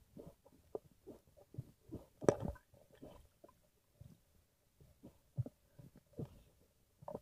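Muffled, irregular thumps and knocks of a freediver moving underwater, picked up through an action camera's waterproof housing, with one louder knock a little over two seconds in.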